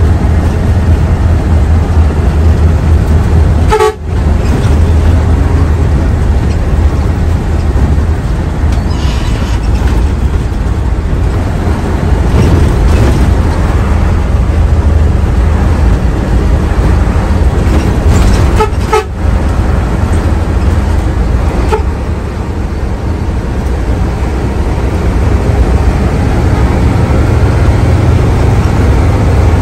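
Hino AK3HR Ranger bus on the move: loud, steady diesel engine and road rumble, with a horn tooting at times. The level drops sharply for a moment twice, about four seconds in and again about two-thirds of the way through.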